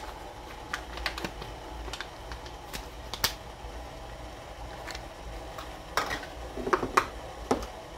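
Scattered light clicks and taps as drained canned peas are poured from a can into a saucepan of sauced spaghetti, with a few louder clicks about six to seven seconds in.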